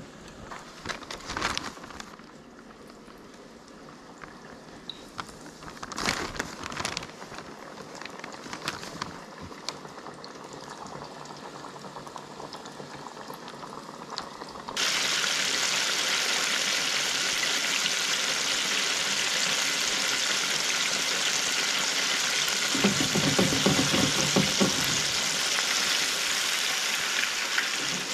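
Battered crappie deep-frying in hot oil, bubbling and sizzling. The first half is quieter with a few knocks, then a much louder, steady sizzle starts suddenly about halfway through.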